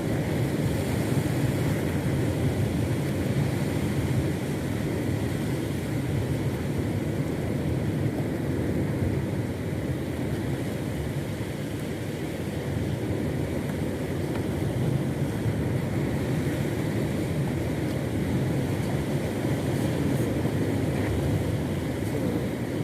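Boat engine running steadily with a low, even drone while the boat is under way, with wind and water noise over it.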